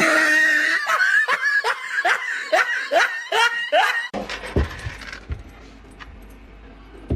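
Laughter in a quick run of 'ha-ha' syllables, about three a second, that breaks off suddenly about four seconds in and gives way to a quieter low hum.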